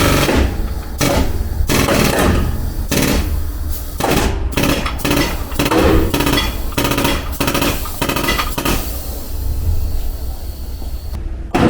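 Body-repair hammer striking the car's steel body panel again and again, with a fast run of blows in the middle: panel beating to straighten sheet metal crumpled in a rear-end collision.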